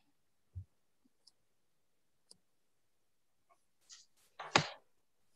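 Quiet pause on a video-call line with a few faint, scattered clicks and knocks, a soft low thump about half a second in and a louder short noise about four and a half seconds in.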